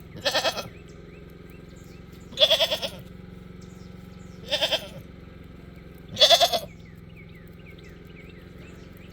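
A goat bleating loudly, four wavering calls about two seconds apart; she is calling for her morning feed.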